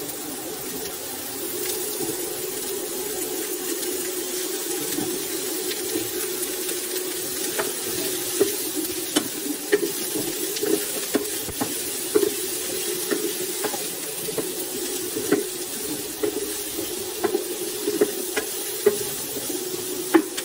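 Potato and carrot pieces sizzling with onions in a frying pan over a steady low hum, while a wooden spatula stirs them; from about seven seconds in the spatula knocks and scrapes against the pan in frequent sharp clicks.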